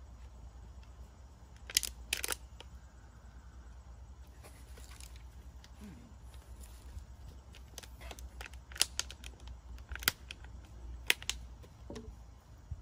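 Scattered sharp plastic clicks and crackles from small Play-Doh tubs and lids being handled, with a pair about two seconds in and several more in the last few seconds, over a steady low rumble.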